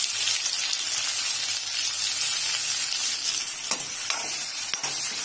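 Chopped tomatoes and onions sizzling steadily in hot sesame oil in a metal kadai. From a little past halfway, a spatula stirs them, with a few light clicks of the spatula against the pan.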